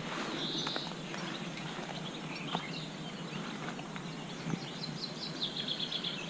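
Songbirds in riverside trees: a short high call about half a second in, then a fast run of high, quickly repeated notes near the end, over a steady rushing background with a few faint clicks.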